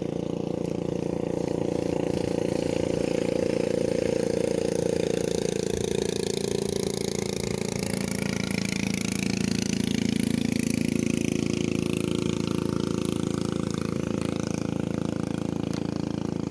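A small boat's engine runs steadily under way. About halfway through, its pitch drops and stays lower as the throttle eases off.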